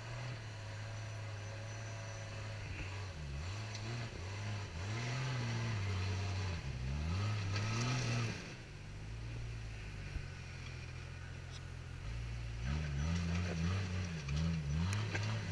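Jeep Cherokee XJ engine idling, then revved up and down in repeated bursts as it struggles to climb a snowy rock obstacle. It settles back to a steady idle for a few seconds in the middle before the revving picks up again near the end.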